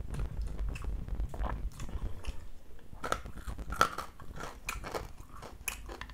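Close-miked chewing and irregular crackling of crispy deep-fried tilapia as it is torn apart by hand and eaten, with the crackles coming thicker and sharper after about three seconds.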